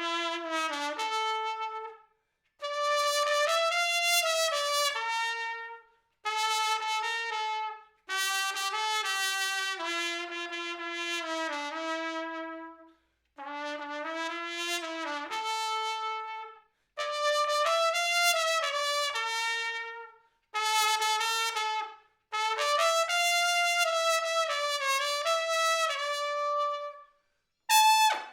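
Solo trumpet playing a slow melody unaccompanied, in phrases of two to five seconds with short breath pauses between them. It is recorded dry, with no added reverb or effects.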